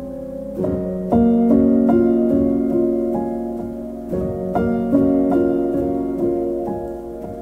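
Background piano music: slow, gentle notes and chords, each struck and then left to ring and fade.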